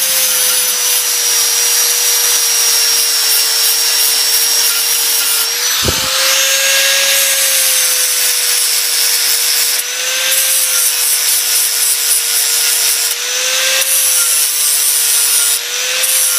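Angle grinder running steadily, its disc grinding down a MIG weld on a steel car body panel. The motor's pitch wavers and dips slightly a few times as the disc is pressed into the metal, with a brief knock about six seconds in.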